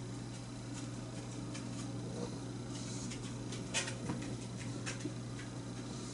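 Indoor room tone: a steady low hum with a few small scattered clicks and rustles, the sharpest a little under four seconds in.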